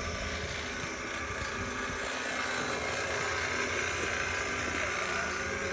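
Refrigeration vacuum pump running steadily on the mini split's refrigerant lines, a continuous motor hum, evacuating the line set before the system is charged.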